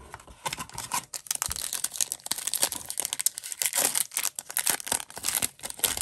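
A trading-card pack wrapper being torn open and crinkled in the hands: dense, rapid crackling.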